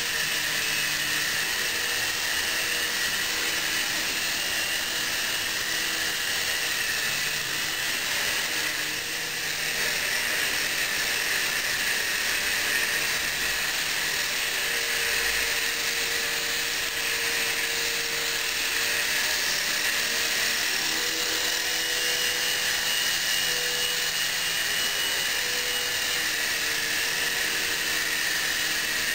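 Miniature indoor RC helicopter's small electric motors and rotors whirring steadily in flight: a high-pitched whine whose pitch shifts slightly now and then as the throttle changes.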